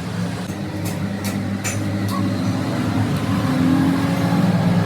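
A motor running with a steady low hum that grows louder toward the end, with a few light clicks in the first two seconds.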